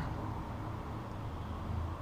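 Steady low hum under faint, even background noise, with no distinct handling sounds.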